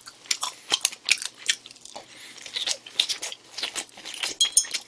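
A person chewing a mouthful of food, with many short, sharp mouth clicks, several a second.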